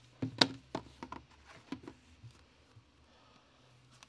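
A trading-card box being opened and handled by hand: several sharp clicks and knocks of the lid and packaging over the first two seconds, the loudest about half a second in, then only faint handling.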